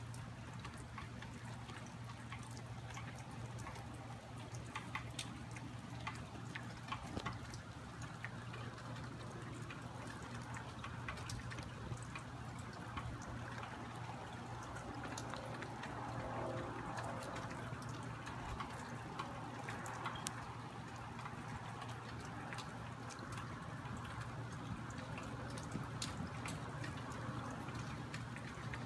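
Rain falling and dripping: a steady wash with many small, irregular drop ticks over a faint, steady low hum.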